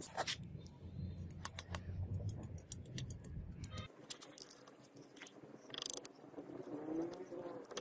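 Small irregular clicks, taps and scrapes of a metal trowel working clay onto a steel blade wrapped in wire. A low hum sits under the first four seconds and stops abruptly.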